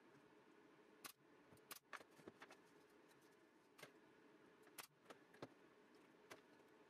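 Pneumatic brad nailer driving nails into a small wooden case: a string of faint, sharp clicks at uneven intervals, over a faint steady hum.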